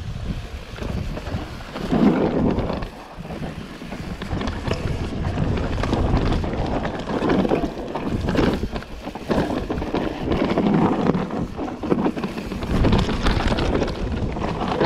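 Mountain bike descending a dirt forest trail at speed: wind rushing over the microphone, with the tyres on loose dirt and the bike rattling over roots and rocks, loud in uneven surges.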